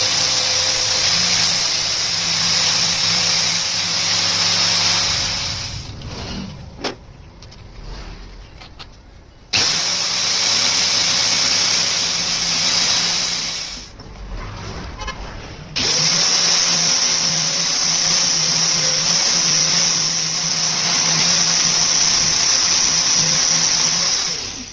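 Electric grinder running and grinding, loud and steady, in three long stretches. Around 6 s and again around 14 s it drops away into a few quieter seconds, then starts again abruptly.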